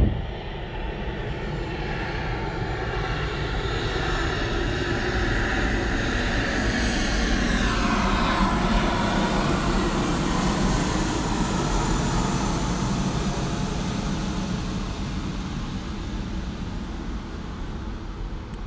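Roar of a passing aircraft, swelling to its loudest about halfway and then fading, its pitch dropping around the middle as it goes by.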